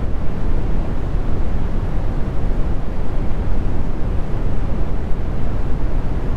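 Brown noise: a steady, even, low rumbling hiss with no changes, its energy deepest in the bass and falling off toward the treble.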